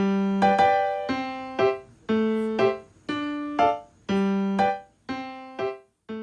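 Background music: a piano or electric piano plays a simple, evenly paced melody of single notes, about two a second, each fading before the next.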